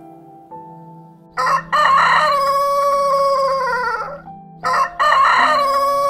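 Rooster crowing twice, each crow a short opening note followed by a long held call that falls away at its end. Soft piano music plays underneath and is heard alone for about the first second.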